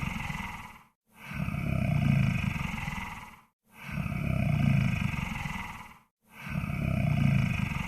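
Monster snore sound effect: a low, rough snoring breath that swells and fades, repeating about every two and a half seconds with a brief silent gap between.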